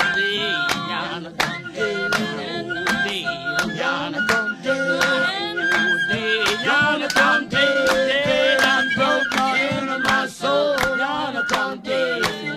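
A group of voices singing a spiritual a cappella, with steady handclaps keeping the beat.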